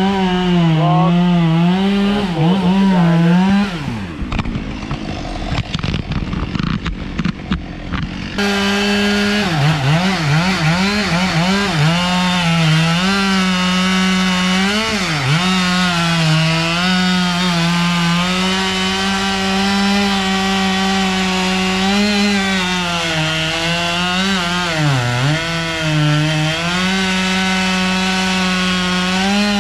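Two-stroke chainsaw running at high revs and cutting wood, its engine note dipping and recovering again and again as the chain bites. About four seconds in it drops to a rougher, lower sound for a few seconds, then runs at full speed again.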